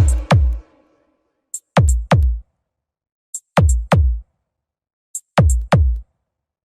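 Drum-machine breakdown in a bass-heavy sound-test remix: pairs of deep kick drums that drop sharply in pitch, each pair led by a short high tick, repeating about every two seconds with dead silence between.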